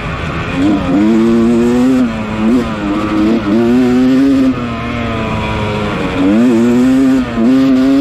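Yamaha 250 dirt bike engine racing at high revs, holding a steady pitch and dropping sharply then climbing back about five times as the throttle is chopped and reopened.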